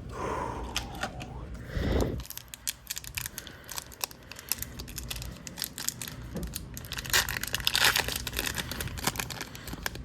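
Foil hockey card pack wrapper being torn open and crinkled in the hands, with scattered crackles that grow dense about seven to eight seconds in, and a low thump about two seconds in.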